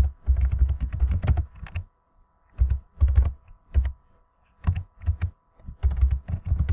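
Typing on a computer keyboard: four quick bursts of keystrokes with short pauses between them.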